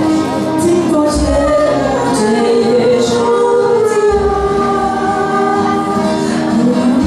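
Live band music with singing, the voices holding long notes that glide from pitch to pitch; deep bass notes come in about a second in and again around four seconds.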